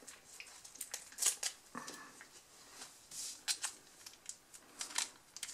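Foil mayonnaise sachet being torn open and worked between the fingers: a string of irregular crinkles and small crackles.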